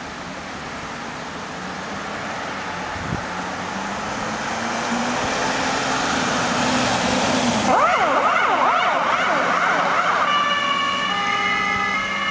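A Mercedes-Benz Sprinter ambulance pulls away with its engine getting louder. About eight seconds in, its siren starts with a fast up-and-down wail, then after a couple of seconds switches to an alternating two-tone pattern.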